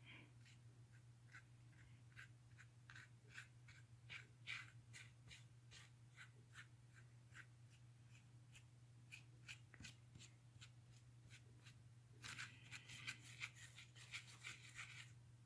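Paintbrush dabbing and scrubbing acrylic paint onto a ridged, modeling-paste-textured canvas: faint, irregular scratchy taps, with a denser stretch of scrubbing near the end, over a faint steady hum.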